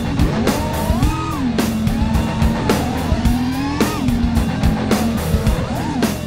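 Background music with a steady drum beat and a melody line that slides up and down in pitch.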